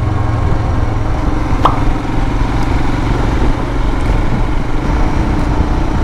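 Royal Enfield Himalayan motorcycle's single-cylinder engine running steadily on the move, with a constant low rumble of engine and road noise. A brief rising chirp cuts through it about one and a half seconds in.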